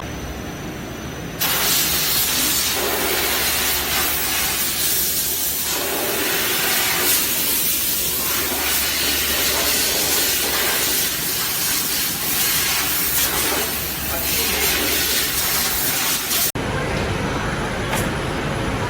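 Dog-treat production machinery giving off a loud, steady hiss like steam or compressed air over a low hum, starting abruptly about a second and a half in and cutting off suddenly near the end.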